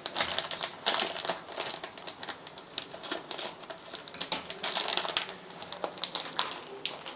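Plastic papad packet crinkling as it is handled, with irregular light clicks and crackles from the dry papads inside.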